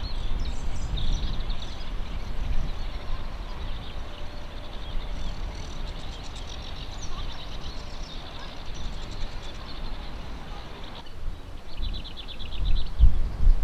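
Small birds singing and chirping in repeated high trills over a steady low rumble of wind on the microphone. Near the end, footsteps on the path.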